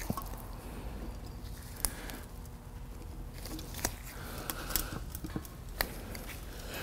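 Light clicks and taps of hoses and metal parts being handled on an engine, as a coolant line is bent out of the way, scattered across a faint background.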